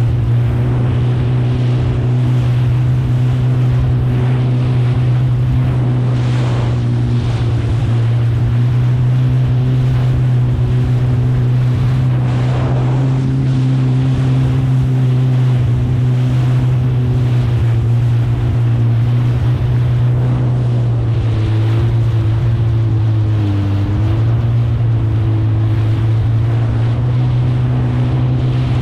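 Kawasaki STX 160 jet ski's four-stroke inline-four engine running at a steady cruising speed. There is a constant wash of water against the hull in chop, with a few louder splashes, and wind buffets the microphone. The engine pitch dips briefly about three quarters of the way through.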